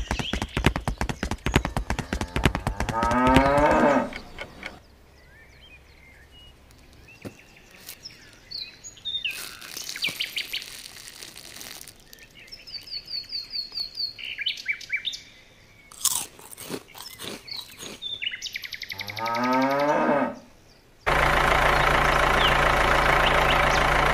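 Cow mooing twice: long bending calls a few seconds in and again near the end, with clicks, crunching and short high bird chirps between. About three seconds from the end an engine starts running steadily.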